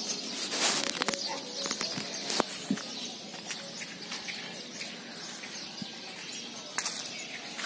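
Outdoor morning ambience of birds chirping, with scattered short clicks and a brief rush of noise about half a second in.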